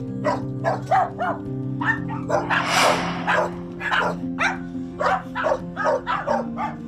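Several dogs barking over and over in quick short barks, about three or four a second, over steady background music.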